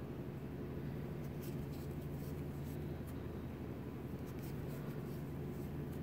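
Crochet hook working yarn: faint, irregular scratchy rustles as stitches are pulled through, over a steady low hum.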